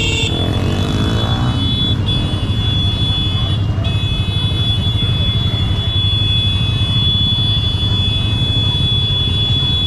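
Several motorcycles idling close by with a steady low rumble, and a steady high-pitched tone above it that drops out briefly twice near the start.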